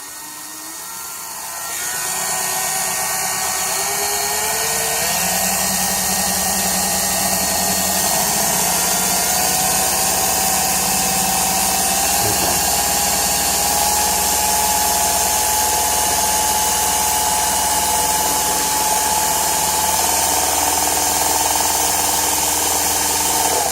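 Electric drill running continuously as it bores into a thin wooden box. The motor whine swells about two seconds in, climbs in pitch over the next few seconds, holds steady, then cuts off suddenly at the end.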